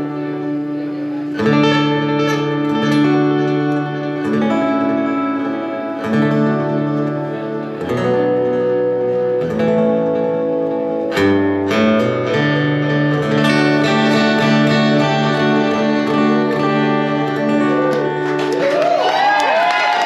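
Amplified acoustic guitar played solo, a slow instrumental passage of ringing chords that change every second or two. Near the end the last chord rings on as the audience starts clapping and cheering.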